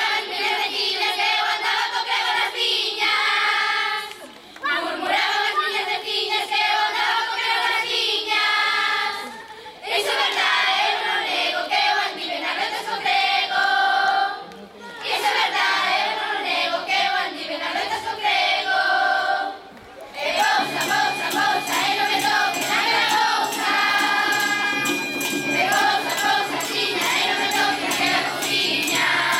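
Children's choir singing together in phrases, with short breaks about every five seconds, and tambourines jingling along. From about twenty seconds in, a steady low drone and a denser rhythmic beat join under the voices.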